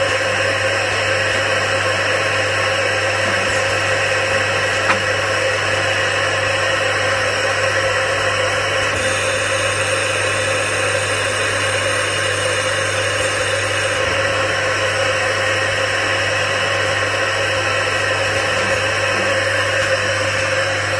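Automatic air-blowing bottle rinsing machine running: a steady motor hum with a constant hiss. A thin, high whine joins in from about nine to fourteen seconds in, and there is a single click about five seconds in.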